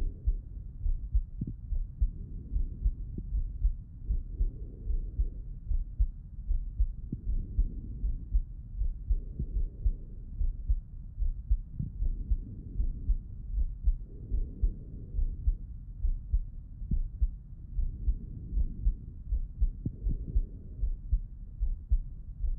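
A man's heartbeat heard through a stethoscope: dull, muffled beats in a steady, slow rhythm, with a softer whooshing that swells and fades every couple of seconds.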